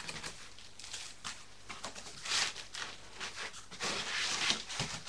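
Cardboard box and polystyrene packing rustling and scraping as they are handled and pulled apart. The scrapes come irregularly, with louder stretches about halfway through and again near the end.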